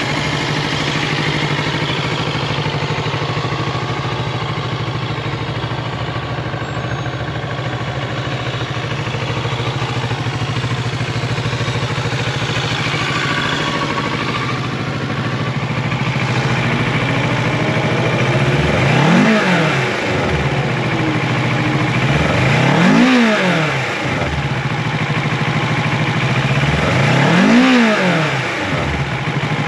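Kawasaki Ninja 650's 649cc parallel-twin engine idling steadily, then revved in neutral three times in the second half, about four seconds apart, each rev rising and falling back to idle.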